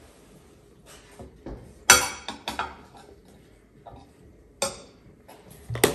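Dishes clinking and knocking together in about five sharp clinks. The loudest comes about two seconds in and has a short ringing tail.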